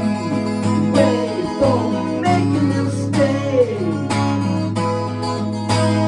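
Instrumental music led by a strummed acoustic guitar over a held low bass note, with several notes sliding down in pitch.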